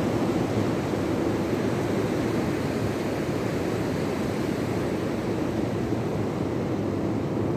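Rough sea at high tide: a steady, unbroken roar of surf with no single wave break standing out.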